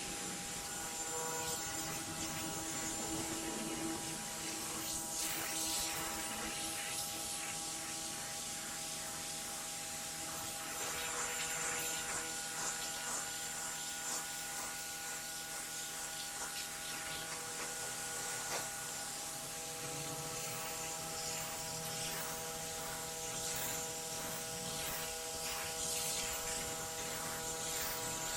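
Pressure washer running steadily, its jet hissing as it cleans a concrete sidewalk.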